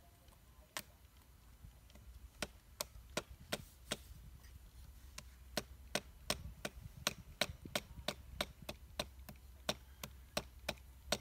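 A knife chopping at plant stems and wood on the ground: short, sharp blows, a single one about a second in, then a steady run of about two to three blows a second.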